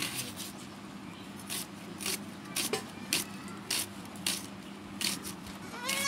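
Irregular scraping strokes, roughly two a second, over a steady low hum; near the end a goat bleats once.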